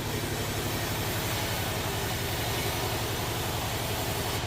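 A heavy engine idling steadily, with an even low pulsing.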